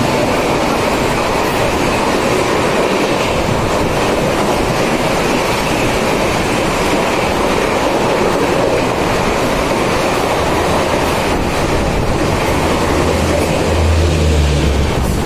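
Mumbai local electric train running at speed, heard from inside the coach: a steady rush of wheels on the rails and wind, with a deeper rumble swelling near the end.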